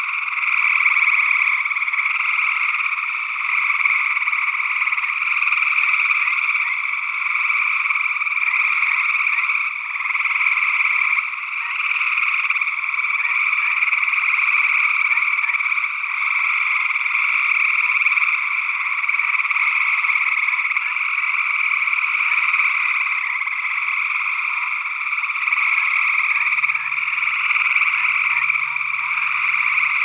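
A dense chorus of gray treefrogs trilling, many calls overlapping into a continuous, unbroken wall of sound.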